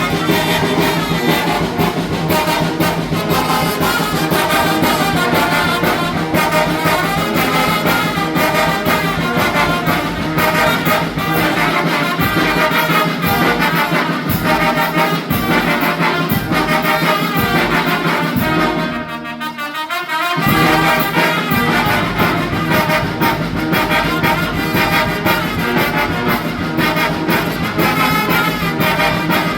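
Mexican brass band (banda) with trumpets and trombones playing a huapango. About two-thirds of the way through, the low end drops out for a moment, then the full band comes back in.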